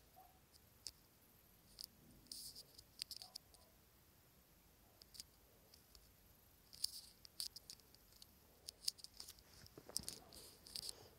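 Near silence with faint, scattered clicks and ticks coming in small clusters, which are fingertip taps on a phone's touchscreen.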